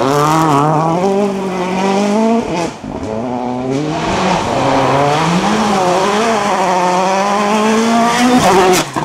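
Citroën DS3 WRC rally car's turbocharged 1.6-litre four-cylinder engine running hard at high revs, its pitch rising under acceleration and dropping at gear changes. The sound breaks off sharply about two and a half seconds in and again near the end.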